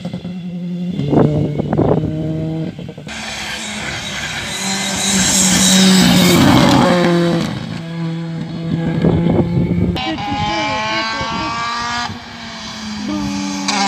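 Rally cars driven hard past the spectator, engines revving up and dropping back again and again through gear changes. The sound jumps abruptly a few times as one car gives way to the next, with a steep climb in revs near the end.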